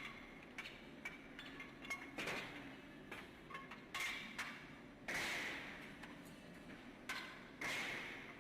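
Repeated sharp metallic clanks every second or two, each ringing briefly, with lighter clinks in between: metal tools or pieces of metal striking each other.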